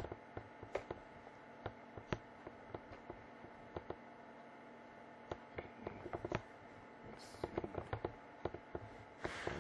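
Computer mouse clicking now and then over a faint steady hum of room tone, with a short hiss near the end.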